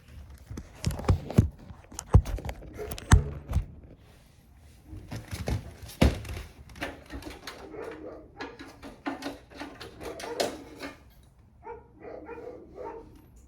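Sharp knocks and clunks of a PCIe adapter card carrying an NVMe SSD being worked into a tight slot in a PC case, several in the first few seconds. In the second half, short pitched whining calls repeat, like a dog's.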